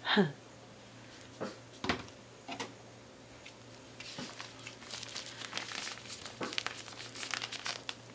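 Plastic crinkling and rustling as it is handled, dense for the last few seconds, with a few light knocks a second or two in.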